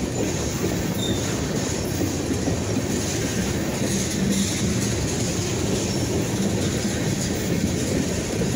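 Freight train of tank cars rolling past at close range, a steady rumble of wheels on rail.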